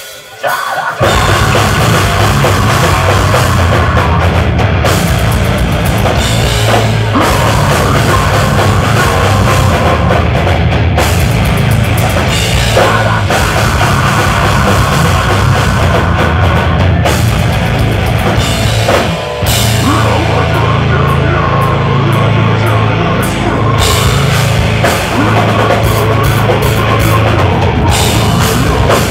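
Deathcore band playing live at full volume: heavy guitars and bass over a drum kit with cymbals. The song kicks in abruptly about a second in, with a brief break about two-thirds of the way through.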